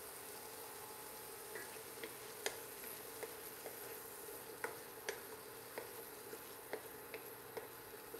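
A wooden spoon stirring diced vegetables in a frying pan over a faint steady sizzle, with irregular light clicks and scrapes of the spoon against the pan starting about a second and a half in.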